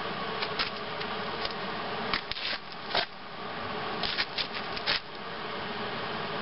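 Handling noise from a MIG welding gun and leather welding gloves: a few short clicks and rustles over a steady background hiss.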